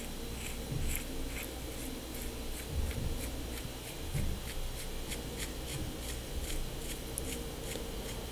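Cone of a Campagnolo cup-and-cone rear hub being turned off its threaded axle by hand, giving a steady run of faint light metallic clicks, about three a second, with soft handling knocks of the hub body.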